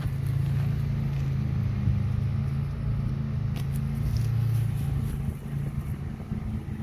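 A steady low hum of a running motor or engine, with a few faint clicks about halfway through.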